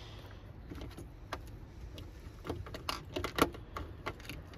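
Small clicks and light rattles from handling fishing tackle up close, a jig and its line, bunching together and loudest about three and a half seconds in, over a faint steady low hum.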